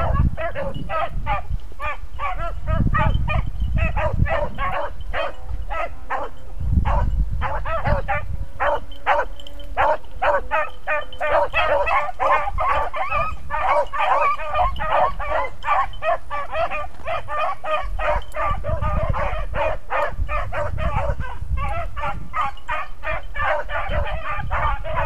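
A pack of beagles baying: many short, overlapping calls in quick succession that run on without a break.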